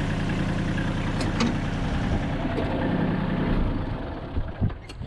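Kubota L35 tractor's four-cylinder diesel engine running steadily, fading down about four seconds in.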